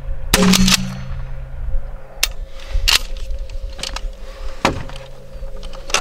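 A 12-gauge Remington TAC-14 DM pump shotgun fires one buckshot round about a third of a second in, a sharp loud blast that rings on. Lighter metallic clacks follow as the gun is handled.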